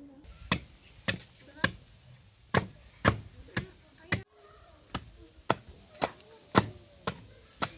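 Hatchet chopping into a piece of wood: a run of sharp blows of the steel blade into the wood, about two a second, with two short pauses.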